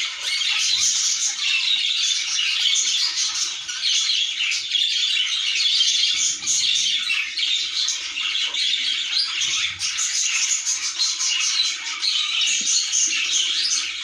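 Budgerigars chirping and chattering without a break, many high calls overlapping one another.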